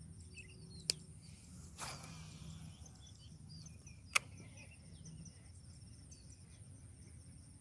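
Insects, crickets among them, chirping steadily in the background. Over them come a sharp click about a second in, a brief whoosh around two seconds, and another sharp click about four seconds in.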